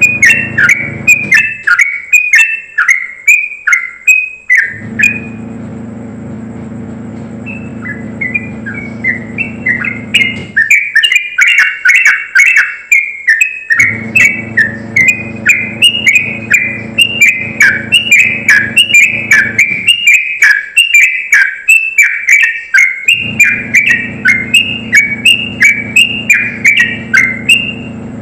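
A yellow-vented bulbul (trucukan) singing its high-pitched rapid-fire song: quick runs of loud, downward-slurred whistled notes, several each second, in bursts broken by short pauses.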